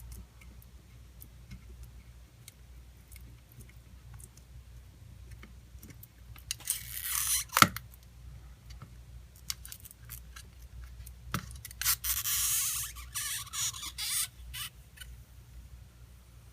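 Stretch-release adhesive tape being pulled out from under an iPhone 6 battery. Small clicks and ticks are heard throughout, and there are two spells of crackly scraping, one about a second long and one about two seconds long, each with a sharp click close by.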